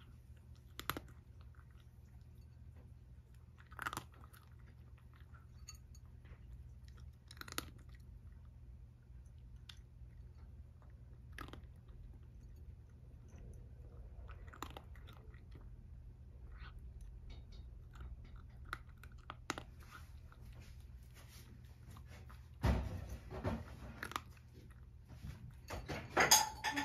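Domestic cat eating dry kibble topped with bonito flakes from a ceramic bowl: a crunch every few seconds as it bites and chews. Near the end there are a few louder, sharper knocks.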